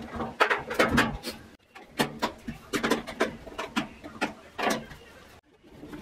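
Irregular clicks and light metallic knocks as a washing machine's sheet-metal cover is closed and its screws are driven back in with a hand screwdriver.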